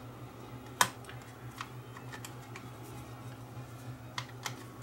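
Screwdriver turning a screw into an old telephone's base plate: scattered light clicks and ticks of tool and screw on metal, the sharpest about a second in, over a steady low hum.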